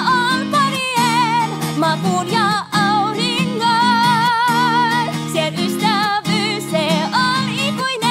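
A woman singing a slow, gentle song in Finnish with a strong vibrato, over a strummed acoustic guitar.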